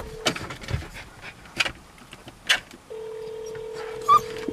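Phone ringback tone heard from a mobile phone while a call rings out. The tail of one ring is heard at the start, then a steady ring of about two seconds from about three seconds in. Several short clicks and a brief sharp scuff near the end sound over it.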